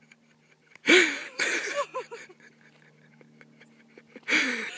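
A woman laughing in breathy bursts, with a strong burst about a second in, a few more over the next second, and another near the end.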